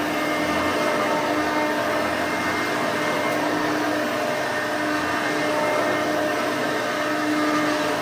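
1993 Hoover Encore U4245 upright vacuum cleaner (5.5 amp) running steadily while pushed over carpet, a constant motor hum with a steady low tone. The owner finds it a bit loud for its amperage and means to check the fan for chips; its belt is due for replacement.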